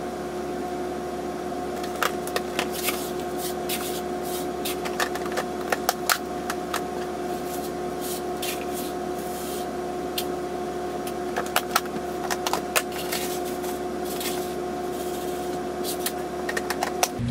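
Dry wheat berries scooped and poured into a glass measuring cup, rattling and clicking in short spills, with the clack of plastic storage-container lids. A steady hum runs underneath and cuts off suddenly at the end.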